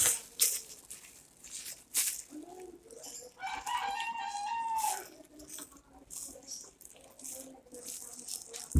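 Plastic bag crinkling and rustling as ripe jackfruit is pulled apart by hand. About three and a half seconds in there is one long crowing call lasting about a second and a half.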